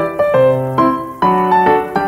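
Background piano music: single notes and chords struck in a steady rhythm, changing every few tenths of a second.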